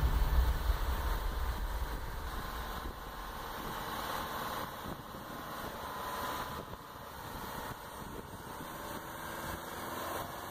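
A vehicle engine running steadily. Background music fades out in the first second.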